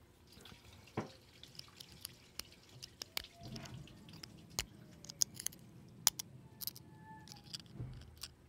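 Thin metal pick picking and prodding at the opened Fitbit Charge 3's circuit board and metal case: a dozen or so sharp, irregular clicks and ticks with light scraping in between.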